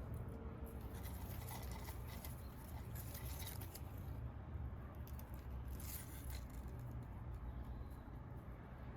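Light scratching and rustling, in two spells, over a steady low hum.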